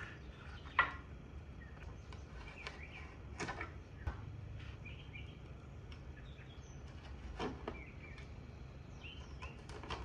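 A razor blade slicing through wood veneer along an edge in three short strokes, the first the loudest. Faint bird chirps and a low steady hum sit underneath.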